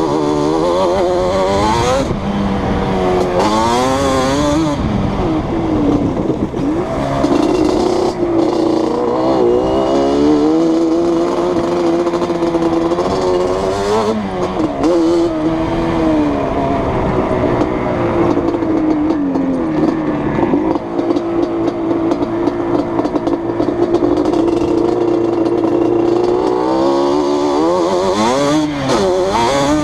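Yamaha Banshee's two-stroke twin engine with Toomey T5 replica drag pipes and twin Keihin 28 mm carbs, ridden hard: the revs rise and fall over and over with throttle and gear changes, hold steady at high revs for a long stretch in the second half, then drop and climb again near the end.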